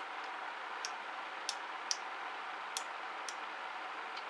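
About five small, sharp clicks at uneven intervals, with a louder one at the very end: a screwdriver tip picking at the metal contact tab of a mini angle grinder's power switch, a tab that has stuck.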